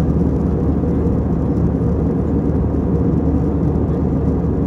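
Steady low rumble of a moving vehicle, with a faint even hum in it.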